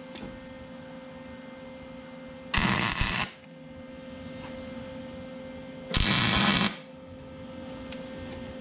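Wire-feed welder laying two short welds on steel, each a burst of arc noise under a second long, about three seconds apart. A steady electrical hum runs underneath.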